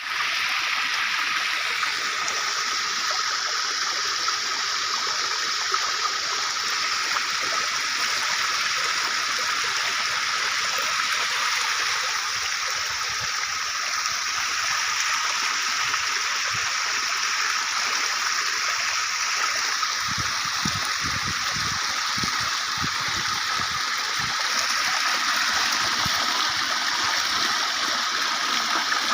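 Water from a village water fountain splashing and running in a steady, unbroken rush. Irregular low thumps join it for the last third or so.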